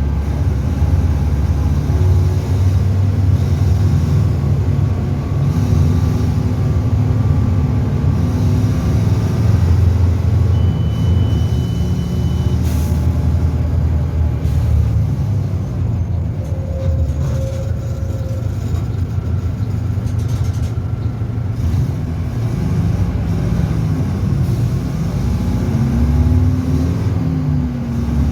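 Mercedes-Benz OF-1722M bus's diesel engine running, its pitch shifting as the revs change, with a rise and fall in pitch near the end.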